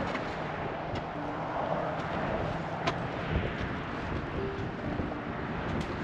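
Wind buffeting the microphone, a steady rumbling rush with a few sharp clicks.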